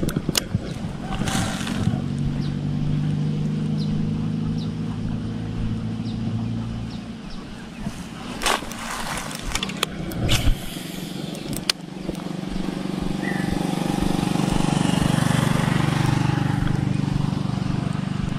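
Motor vehicles passing on a road: one vehicle's engine hum fades away in the first seconds, then another approaches and grows louder toward the end. A few sharp clicks sound in the quieter middle stretch.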